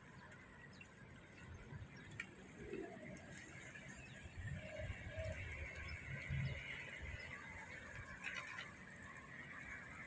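Faint road traffic: a bus passing, its low rumble swelling to a peak a little past the middle over a steady hiss.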